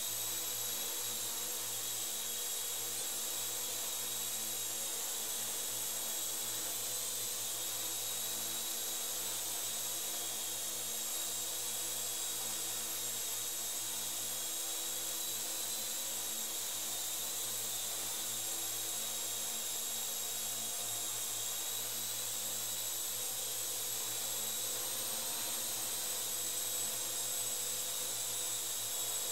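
Parrot AR.Drone quadcopter hovering, its four rotors giving a steady high-pitched whine and buzz.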